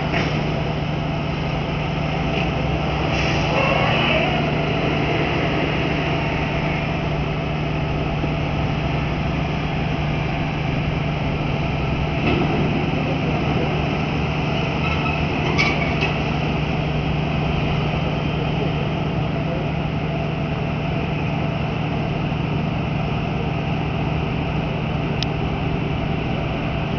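A terminal tractor's diesel engine running as it shunts a semi-trailer on a RoRo ferry's vehicle deck, over a steady low machinery drone that keeps on after the tractor has gone. A few sharp metallic clanks, the loudest about 16 seconds in.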